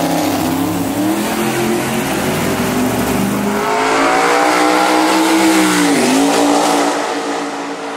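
Twin-turbocharged C6 Corvette Z06 V8 at full throttle on a drag-race pass, its pitch climbing, dipping sharply at an upshift about six seconds in, then climbing again. The sound fades near the end as the car pulls away.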